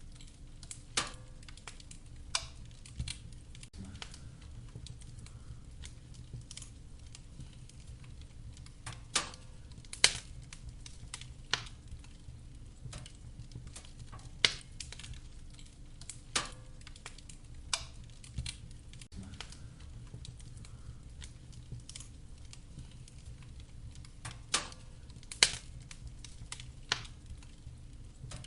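Wood fire crackling: sharp pops from the burning logs at irregular intervals, a few much louder than the rest, over a steady low rumble of the flames.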